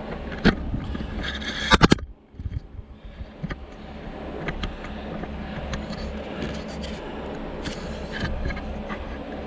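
Jeep running along a rough off-road trail, with a sharp knock about half a second in and a burst of loud knocks and rattles near two seconds, then smaller clicks and rattles over the steady running.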